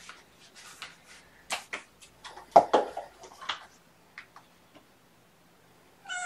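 Scattered clicks and knocks of things being handled, the loudest about two and a half seconds in; right at the end a cat meows once.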